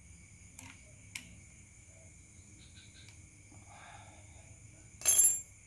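Two light clicks, then one short, sharp metallic clink with a brief ring near the end, from a tool or part knocking while the starter motor is being reassembled.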